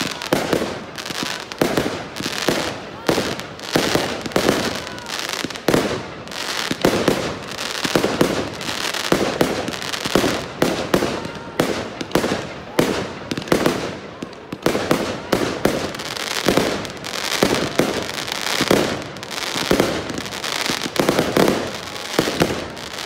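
Fireworks display: a continuous barrage of bangs and crackles going off in quick succession.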